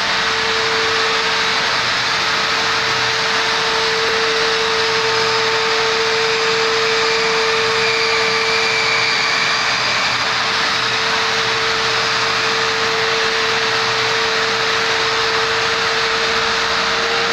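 Long-reach drywall sander running steadily with its sanding disc against a drywall ceiling: a constant motor tone over a loud, even rushing noise.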